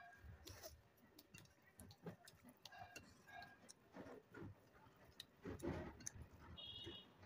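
Quiet eating sounds: chewing with small mouth and hand clicks, and a louder rustle near the end, over a faint regular ticking.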